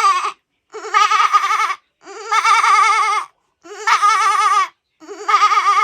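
A goat bleating again and again, each call lasting about a second with a quavering, wavering pitch, with short silent gaps between them.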